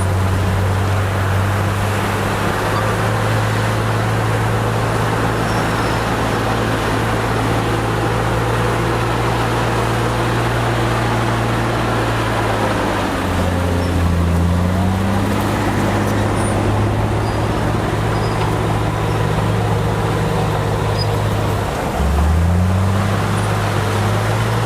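A crawler bulldozer's diesel engine running steadily. Its note drops about halfway through and again near the end, then climbs back each time.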